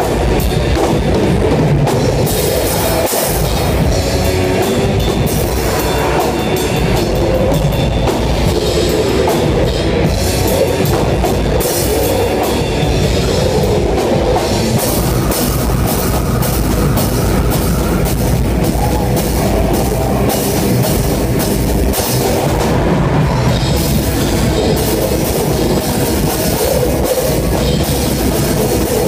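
Live heavy metal band playing, heard from right beside the drum kit: drums and cymbals struck hard and fast over the rest of the band, steady and loud throughout.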